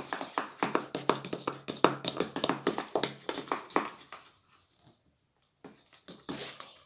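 Homemade slime being stirred and worked in a small plastic pot: rapid clicks and taps, several a second. They stop for about a second after four and a half seconds, then a few more come.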